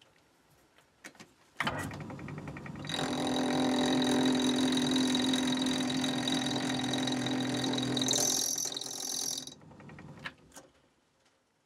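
Myford ML7 lathe starting up about a second and a half in and running steadily with a whine from its drive, the tool turning a steel crank connector; a higher hiss joins near the end, then the motor is switched off and the lathe runs down.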